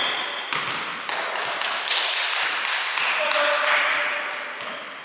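Basketball play on a hard sports-hall court: an irregular string of taps and thuds from the ball and players' feet, echoing in the hall. It dies down toward the end.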